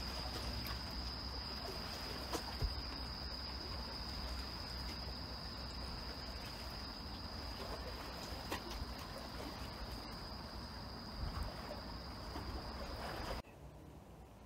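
Night-time sea ambience on a floating fishing platform: water moving under the deck and a low rumble, with a steady high-pitched tone that holds unbroken until the sound cuts off suddenly near the end.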